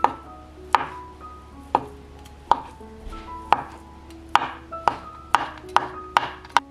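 Kitchen knife chopping peeled boiled eggs on a cutting board: about eleven sharp knocks of the blade striking the board, roughly one a second at first and quicker near the end. Light background music of single held notes plays underneath.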